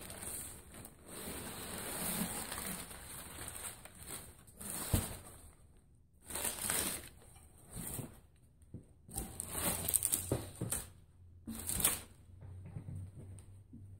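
Packing material and a cardboard box rustling and crinkling while a small engine is lifted out of it, with a few knocks as it is handled.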